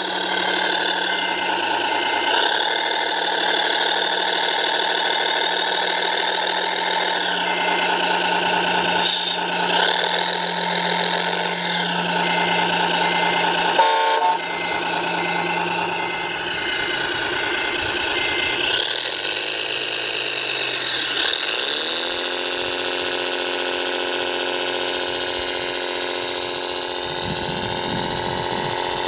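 RC Liebherr mobile crane model working a lift: a steady engine-like drone under motor whine that rises and falls in pitch as the boom and hoist move. A quick high beep repeats through the first two-thirds, and a new lower hum rises in later on.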